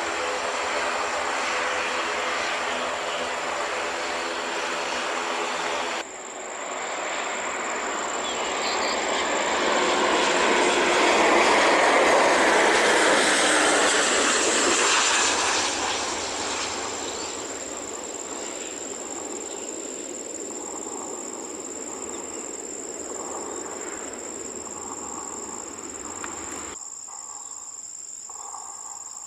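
Airbus A320 jet engines. First a steady engine drone, then the noise of the jet passing swells to its loudest about halfway through and fades away with a falling whine. A steady high insect buzz remains after it.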